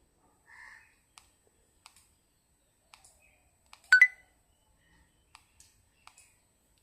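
Scattered faint clicks, with one sharp, louder click about four seconds in that rings briefly.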